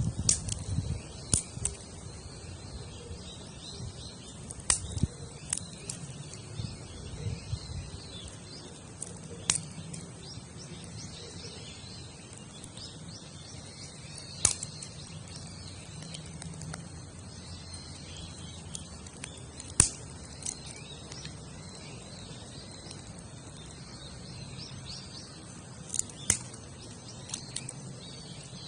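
Wood campfire burning, with scattered sharp crackles and pops from the burning wood, a dozen or so spread irregularly over a low steady background.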